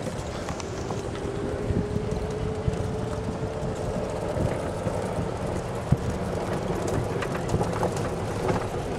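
Vehicle motor running steadily over a low rumble, with a faint whine that slowly rises in pitch.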